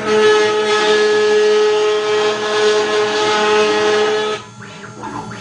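CNC router spindle milling aluminium: a steady, high-pitched cutting tone with a whirring spindle beneath it. The loud cutting tone drops away about four and a half seconds in, leaving a quieter whir.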